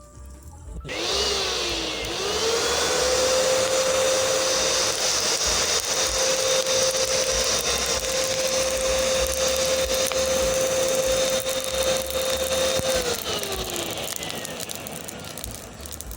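Electric motor of an air compressor blowing air into a homemade coal-fired furnace: it spins up with a rising whine about a second in, runs steadily with a loud rush of air, then winds down with a falling whine near the end.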